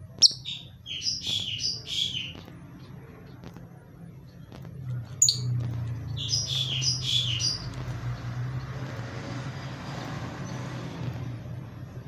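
Blue masked lovebird chirping in two quick bursts of shrill, high chirps, one right at the start and another about five seconds in. A low steady hum runs underneath.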